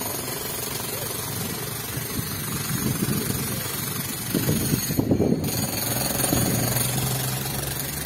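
Road traffic passing along a street. About six seconds in, a steady low engine hum comes in as a car drives up close.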